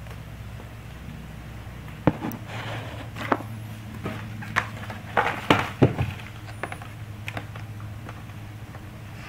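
Blu-ray cases and cardboard being handled by hand: a run of sharp taps, knocks and short scrapes as the cases are picked up and slid against the card, starting about two seconds in and dying away after about seven seconds, over a steady low hum.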